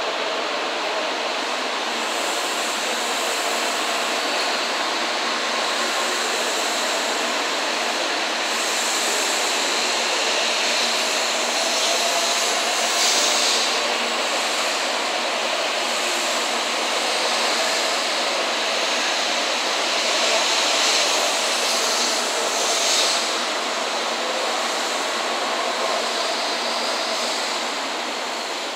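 An N700 series Shinkansen departing the station, its cars rolling past at close range with a steady rush of wheel and air noise. The noise swells a little in the middle and eases off near the end as the last car goes by.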